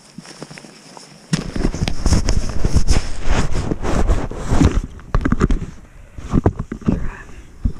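Loud, irregular crackling and rustling close to the microphone. It starts suddenly about a second in and thins out into scattered crackles after about five seconds.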